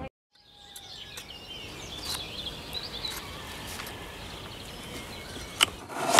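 Garden ambience with birds singing, after a short silence. Near the end, one sharp knock of a knife cutting down onto a wooden chopping board.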